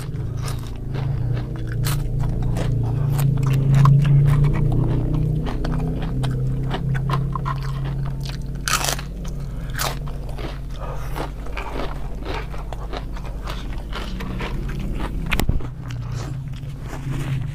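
Close-miked, repeated crisp crunching and chewing as crispy fried tempeh fritters are bitten and chewed. A steady low hum runs underneath.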